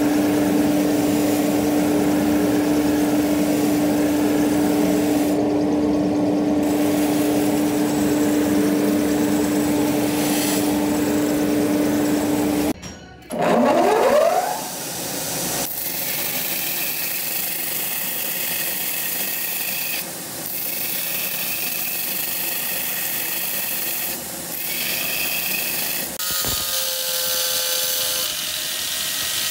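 A powered grinding wheel runs with a steady hum while a steel knife blade is ground against it. About 13 seconds in, a belt grinder's motor spins up with a rising whine and runs steadily. Near the end, an angle grinder's cut-off disc cuts into a steel blade blank.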